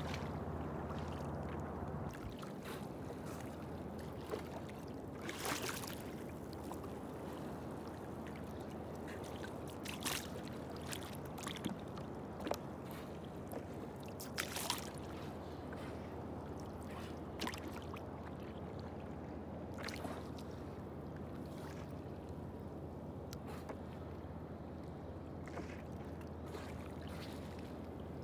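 Water lapping and gurgling against the hull of a small boat, with scattered short splashes over the first twenty seconds.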